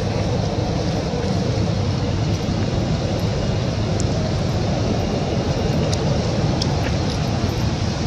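A steady low rumbling noise, even in level throughout, with a few faint ticks about four and six seconds in.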